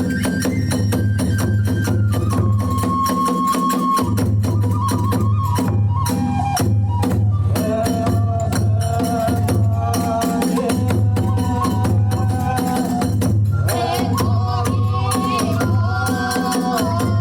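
Kagura hayashi music: drum and small hand cymbals beating a fast, dense rhythm under a bending melody line from a bamboo flute.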